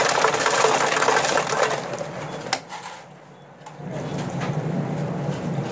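Self-serve soda fountain dispensing: a loud crackling rush that stops with a sharp click about two and a half seconds in, followed by a quieter steady hum.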